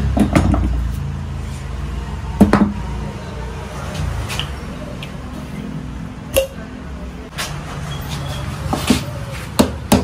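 Scattered metal knocks and clinks from a motorcycle rear shock absorber being taken apart in a bench vise to replace a leaking seal, over a steady low hum. Near the end, quicker hammer taps on the shock body begin.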